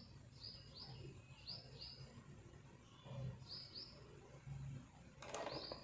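A bird chirping faintly in the background: short high chirps in pairs, about one pair a second with a gap in the middle. A few faint low bumps come from the stones being handled.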